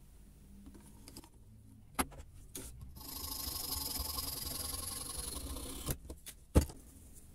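Hacksaw cutting through a wooden dowel clamped in a small vise: a sharp click, then about three seconds of steady sawing. It ends with two knocks near the end, the second the loudest sound.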